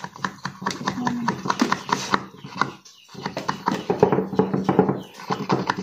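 Rapid, irregular light knocking, several knocks a second, with a short pause about three seconds in.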